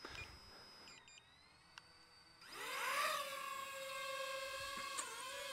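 DJI FPV quadcopter's propeller motors spinning up for take-off: about two and a half seconds in, a whine rises in pitch and then holds as a steady high hum.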